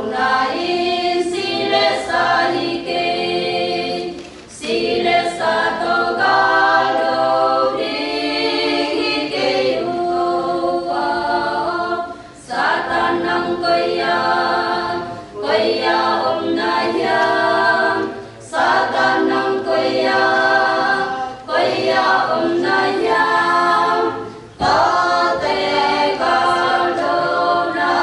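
Women's choir singing a cappella, several voices together in phrases broken by short pauses for breath every few seconds.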